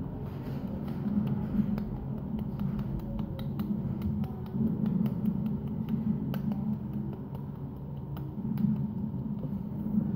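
A hand lightly slapping a cheek over and over, a string of short, sharp pats a few times a second, over a low hum.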